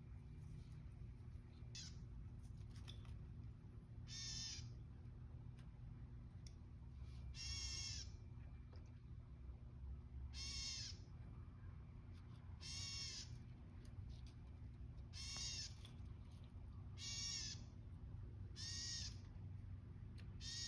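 A bird outside giving a harsh call over and over, about eight calls, one every two to three seconds.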